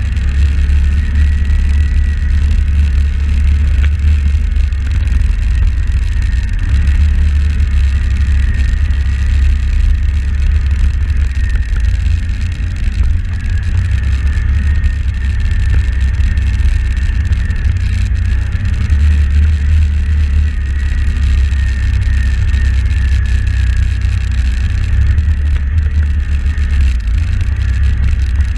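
Can-Am 1000R XMR ATV's V-twin engine running steadily at trail speed, with a faint wavering whine above it. Heavy wind rumble on the hood-mounted camera's microphone underlies it throughout.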